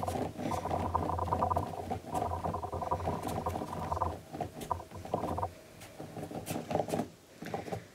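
Hands rolling a coil of air-drying clay back and forth on a wooden tabletop, palms and clay rubbing against the wood.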